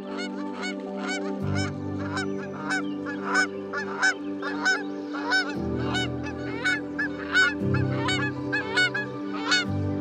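Canada geese honking over and over, about two calls a second, over soft sustained background music whose chords change every couple of seconds.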